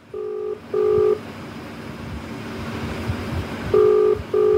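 Phone ringback tone on an outgoing call, heard from the phone's speaker: a double ring of two short beeps, repeated once about three and a half seconds later. The call is ringing unanswered at the other end.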